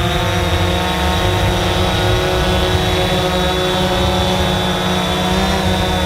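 DJI Phantom 4 quadcopter in flight: the steady, loud buzzing whine of its four motors and propellers, many tones sounding at once over a low hum, with a slight shift in pitch about five and a half seconds in.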